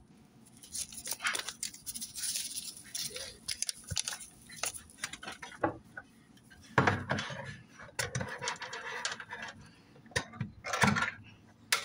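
Small foil Sazón seasoning packet crinkling and being torn open, with scattered light clicks and handling rustle as the powder is shaken out; a couple of louder knocks come about seven and eleven seconds in.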